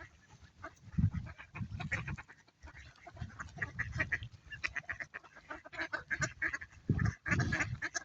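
A crowd of mallard ducks quacking, many short calls overlapping throughout. Two dull low thumps, about a second in and near the end.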